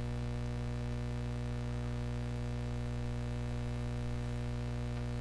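Steady electrical mains hum with a buzz of many even overtones and a faint hiss, picked up by the recording chain; nothing else is heard.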